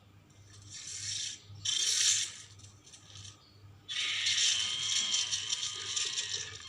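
Ceratosaurus creature sound effect: harsh, rasping hiss-like calls. A short one comes about a second in and a louder one about two seconds in, then a longer call with a faint pitched edge starts about four seconds in.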